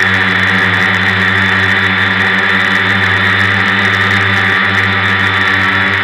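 Multirotor drone's electric motors and propellers whirring steadily in flight, heard from a camera mounted on the drone's own frame.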